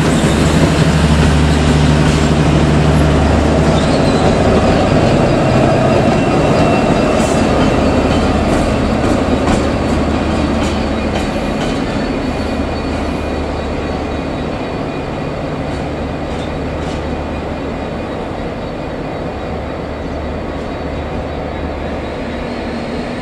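Irish Rail 201 Class diesel locomotive, with its EMD two-stroke V12 engine, hauling the Enterprise coaches past: a heavy engine drone at first, with the rumble of the rolling train, a faint high wheel squeal and clicks of wheels over the track. Later the engine runs steadily at a lower level.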